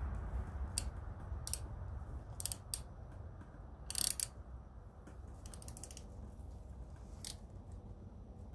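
Scattered metallic clicks and scrapes of a hand wrench turning a bolt into an untapped mounting hole of a Briggs & Stratton engine, the loudest about four seconds in and a quick run of clicks a little later. The bolt is not biting and cutting its own thread badly. A low hum sits under the clicks.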